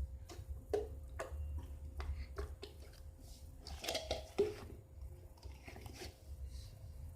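Slime mixed with kinetic sand being squeezed and stretched by hand: scattered small sticky clicks and squishes.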